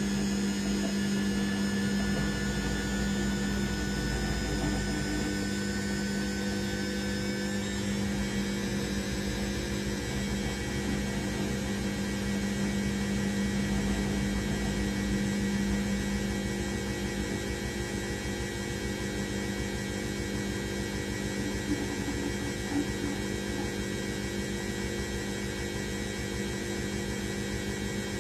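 Candy Aquamatic Aqua 1000 T washing machine running: a steady electric hum with a higher motor whine that rises slightly over the first several seconds, then holds steady.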